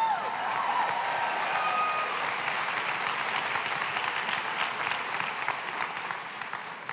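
Audience applauding, dense clapping with a few cheers near the start, dying away toward the end.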